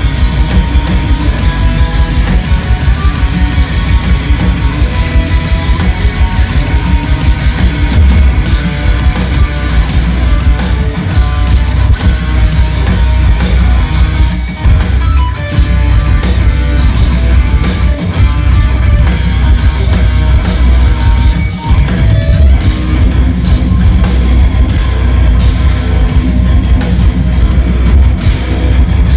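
Instrumental progressive metal band playing live: eight-string electric guitars in fast, dense lines over a busy drum kit, heard loud from the audience.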